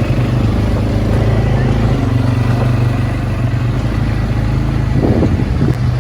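ATV engine running steadily while the quad bike is ridden, with a brief rougher burst about five seconds in.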